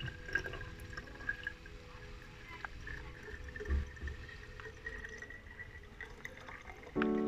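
Liquid poured from a plastic cup through a mesh tea strainer, trickling and dripping, with a few light knocks of plastic. Background music goes on faintly and a louder chord comes in near the end.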